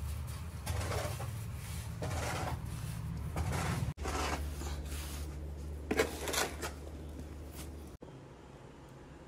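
A mason's trowel and a hand scraping and spreading wet cement mortar in a series of short scrapes, over a low steady hum. The scraping and hum stop near the end, leaving it quieter.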